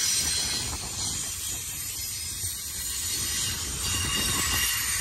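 Double-stack container train's well cars rolling past close by, a steady rumble of wheels over the rails with fast clicking and clatter, the train moaning and groaning as it goes.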